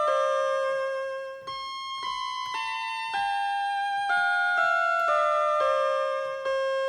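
Instrumental music on an electronic keyboard: a slow stepwise melody that mostly falls, with notes changing about twice a second. There is a brief dip in level about a second and a half in.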